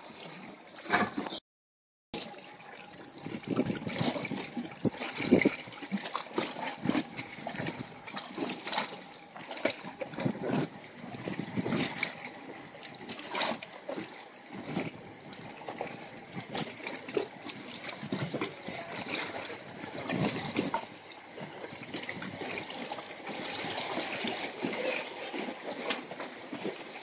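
Sea water lapping and splashing in short, uneven surges. The sound cuts out completely for about half a second near the start.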